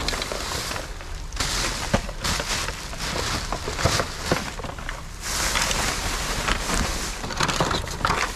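Hands rummaging through trash in a dumpster: rustling and scraping of bags and boxes, with scattered clicks and knocks as objects are moved.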